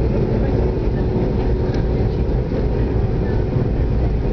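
Steady roar of jet engines and airflow inside an airliner's cabin during takeoff, heavy in the low range with a faint steady hum.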